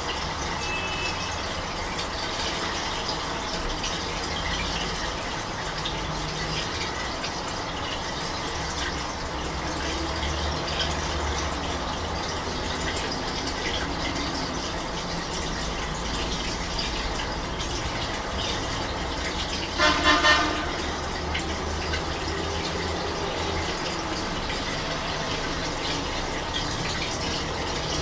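Old washing machine running a wash with a duvet load: a steady wash of water noise over a low, wavering motor hum. About two-thirds through, a brief pitched toot sounds in three quick pulses.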